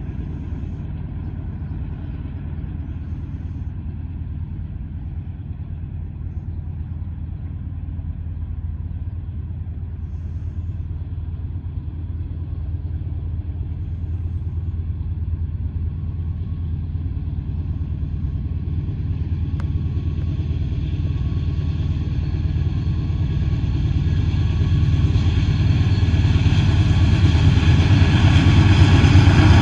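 Union Pacific freight train with diesel locomotives approaching: a low rumble that grows steadily louder, with higher sounds filling in over the last several seconds as it nears.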